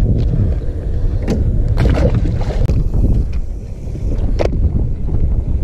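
Wind buffeting the camera microphone, a loud steady low rumble, with a few sharp clicks and knocks along the way.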